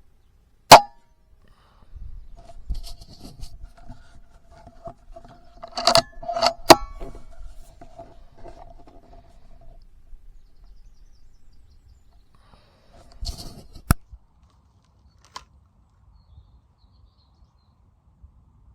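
Weihrauch HW100 .20 PCP air rifle shots: a sharp, loud crack about a second in, then further sharp cracks and clicks around the middle and two-thirds of the way through. A faint steady tone and handling noise sit in between.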